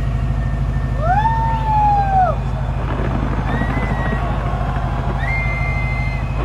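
Fireworks display with a loud, steady rumble of crowd and bursts, over which several whistling tones glide up, hold and fall away, the strongest about a second in, with faint crackling in the middle.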